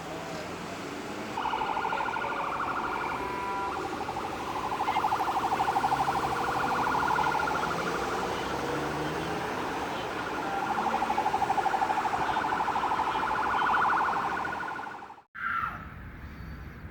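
Emergency vehicle siren wailing, its pitch slowly rising and falling over traffic noise, starting about a second in and stopping abruptly near the end.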